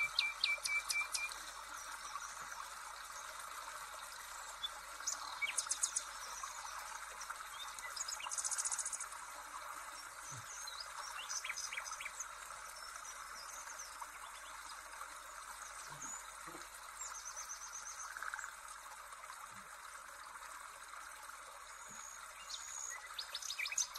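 Birds chirping and singing: scattered short high chirps, quick trills and whistles over a steady faint hiss.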